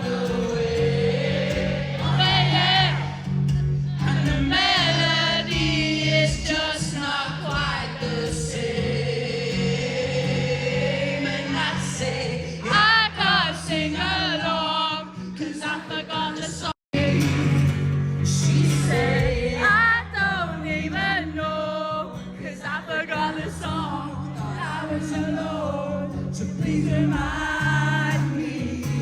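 Live acoustic pop performance: sung melody over steady guitar chords, with the audience singing along. The sound cuts out for an instant about 17 seconds in.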